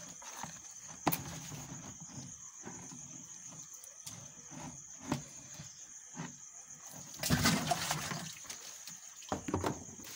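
Water sloshing and splashing as a large catfish is slid into a water-filled plastic jerry can, with knocks of handling against the plastic. The loudest splash comes about seven seconds in.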